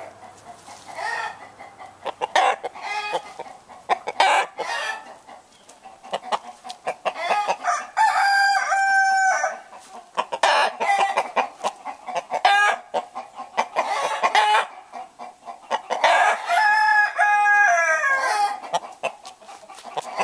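Barred Rock rooster clucking repeatedly, with two long crows, about eight seconds in and again about sixteen seconds in.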